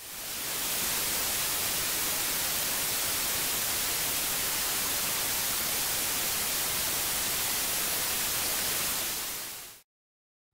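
Untuned analog television static: a steady hiss that fades in at the start and stops abruptly just before the end, leaving a moment of silence.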